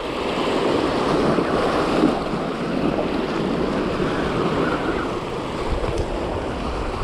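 Surf washing and splashing against jetty rocks, with wind buffeting the microphone.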